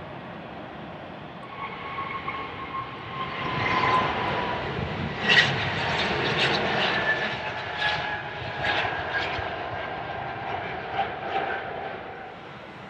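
Boeing 777-200 twin-engine jet airliner taking off at full thrust. The engine noise builds from a couple of seconds in, is loudest as the aircraft lifts off, and carries a whine that slowly drops in pitch along with sharp crackles. It fades as the jet climbs away.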